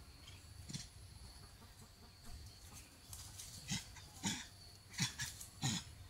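Steady faint insect buzz, with several short scuffing or rustling sounds: one about a second in and a cluster in the second half.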